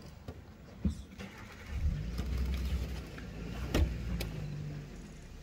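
Motor vehicle engine running low and steady, growing louder about two seconds in. There are two sharp knocks, one about a second in and a louder one near four seconds in.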